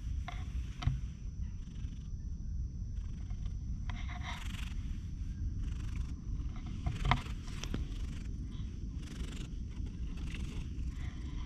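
Domestic cat purring close to the microphone while being stroked: a low, steady rumble that swells in pulses every second or so. Two brief knocks are heard, the louder one about seven seconds in.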